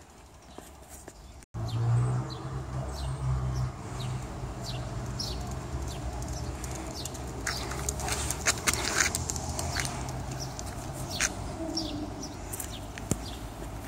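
Outdoor ambience: a steady low rumble under many short, high chirps from small birds, which thicken about halfway through.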